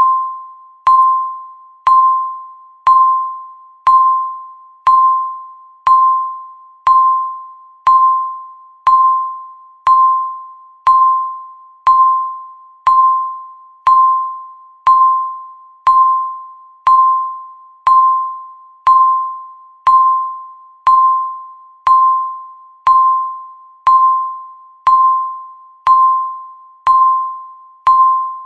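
Countdown timer's second-by-second chime: one bell-like ding each second, struck sharply and fading away before the next, the same pitch every time.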